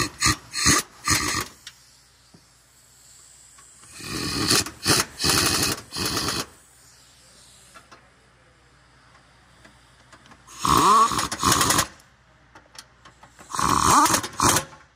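Ratchet wrench on a long socket extension worked in short spells, tightening bolts on the starter mounting during reassembly. The ratcheting comes in four spells: near the start, about four seconds in, about eleven seconds in, and near the end.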